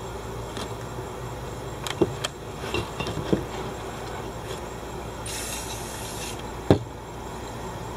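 Aerosol spray-paint can hissing in one short burst of about a second onto a piece of cardboard, a little past the middle. Before it come a few light knocks and rubbing as the cardboard is handled, and a sharp knock follows just after the spray, the loudest sound here.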